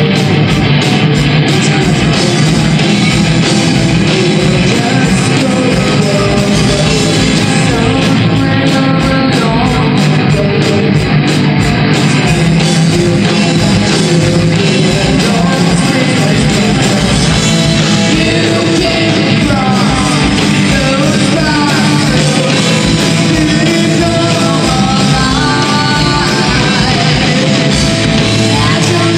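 Live metal band playing: distorted electric guitars, bass and drums with a fast, steady kick drum, and singing over them.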